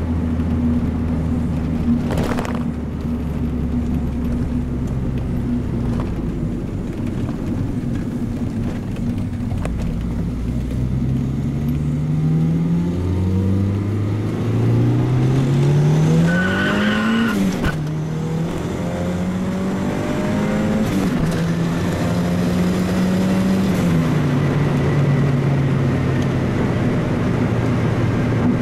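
Turbocharged Honda B18C inline-four, fitted with a Turbonetics T3/T4 turbo at 7 psi, heard from inside the car's cabin. It drones steadily, then just under halfway through it pulls hard with the pitch climbing for several seconds. The pitch drops sharply once at a gearshift, climbs again more gently, holds, and falls back to a lower steady cruise near the end.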